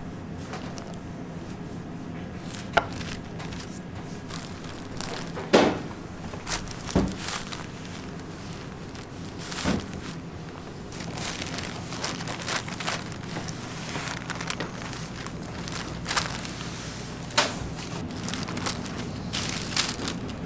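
Parchment paper rustling and crinkling as roll cakes are wrapped and rolled with a wooden rolling pin, with several sharp knocks of wood and cake rolls against the work table, over a steady low hum.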